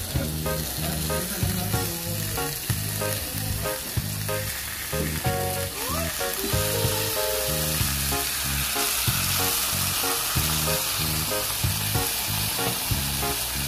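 Background music with a moving bass line over a steady, continuous hiss.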